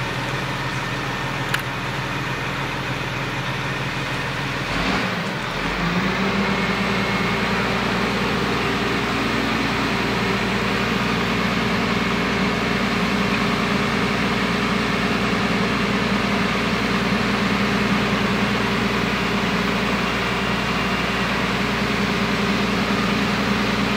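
Truck-mounted crane's diesel engine running, its revs rising about five seconds in and holding higher as the crane hoists a load.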